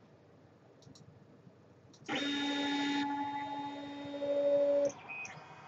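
Lulzbot TAZ 3D printer's stepper motors whining steadily as they drive the print head carriage on its OpenRail X axis and move the bed. The whine starts suddenly about two seconds in, changes pitch partway through and cuts off sharply near the end, and a brief higher tone follows.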